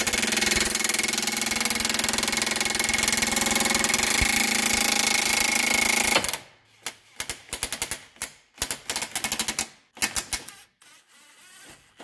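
Impact wrench hammering steadily for about six seconds, driving the screw of a ball joint separator to press the lower ball joint stud out of the steering knuckle, then stopping abruptly and following with several short bursts.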